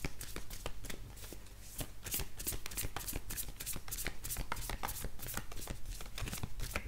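A deck of oracle cards being shuffled by hand: a steady, rapid run of soft card slaps and flicks, several a second.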